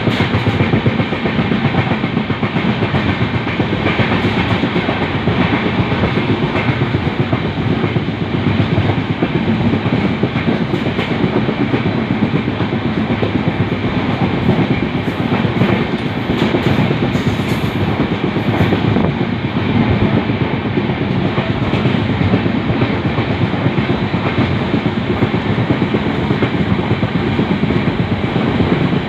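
Indian Railways LHB passenger coach running along the track: a steady, loud rumble and clatter of wheels on the rails.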